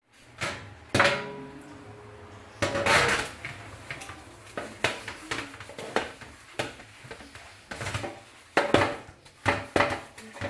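Dishes and utensils clinking and knocking together at an irregular pace, with one item ringing briefly after a knock about a second in.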